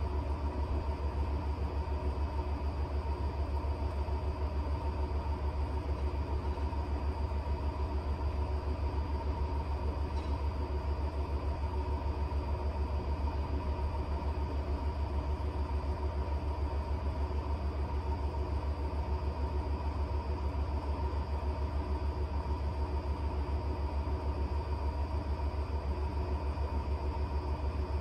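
Electrolux W75MP washer-extractor spinning in its final extraction: a steady deep hum with a fast, even pulse, and a fainter steady whine above it.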